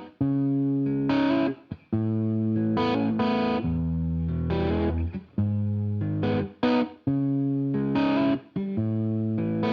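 Background music: distorted electric guitar chords played in choppy stabs, each chord held briefly and then cut off sharply.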